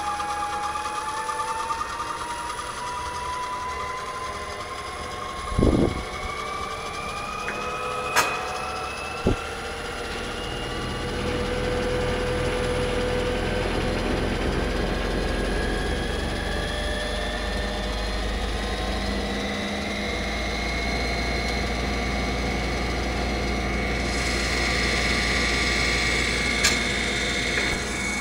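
Electric drive motor spinning a modified Denso alternator fitted with an NdFeB permanent-magnet rotor, a machine whine of several tones rising slowly and steadily in pitch as the speed is ramped up. A low hum swells in about a third of the way through, and a few short knocks sound early on and near the end.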